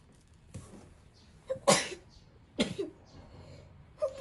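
Three short coughs or sneeze-like bursts from a person, the middle one loudest.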